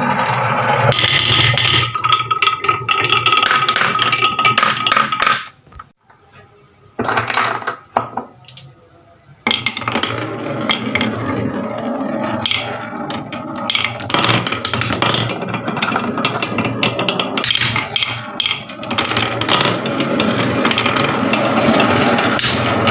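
Many marbles clattering and rolling down a wooden marble run: a dense, fast run of clicks and knocks that thins out briefly about a quarter of the way through.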